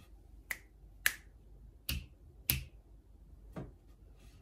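Fingers snapping five times at an uneven pace, each snap short and sharp, with the second and fourth the loudest.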